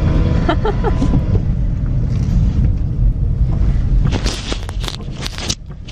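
Toyota RAV4 driving on the road, heard from inside the cabin: a steady low rumble of engine and tyre noise, with a few short knocks and clicks about four to five seconds in.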